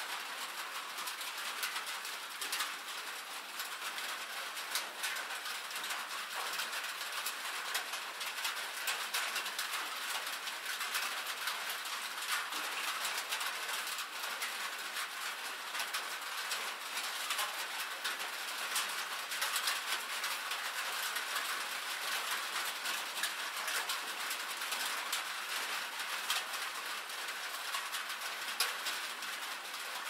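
Steady rain: a dense, even patter of many small drops ticking, bright and hissy with almost no low rumble.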